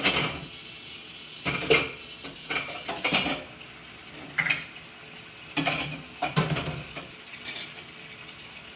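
Metal cutlery and dishes clinking and clattering as they are handled and set into a dishwasher rack, in a string of separate knocks and rattles.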